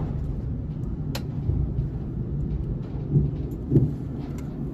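Loud, steady low rumble of outdoor background noise, with a sharp click about a second in and a few softer bumps later.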